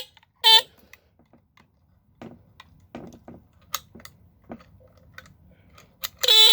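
Battery-powered horn of a vintage ARO No. 240 chain burglar alarm: a short blast about half a second in, then clicks and knocks as the unit is handled. Near the end the horn starts sounding steadily in a buzzing tone.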